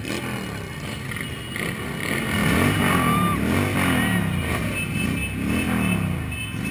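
Motorcycle engines running at low speed, revved several times in a row from about two seconds in, each rev rising and falling in pitch.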